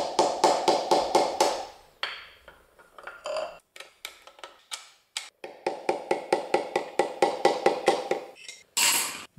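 Small hammer rapidly tapping a connecting rod cap on a small-block Chevy crankshaft to knock it loose, metallic ringing taps at about five a second in two runs, with a louder clatter near the end.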